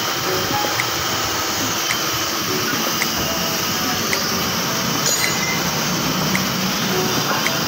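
Steady workshop background noise with a light tick repeating about once a second, and a brief metallic clink about five seconds in.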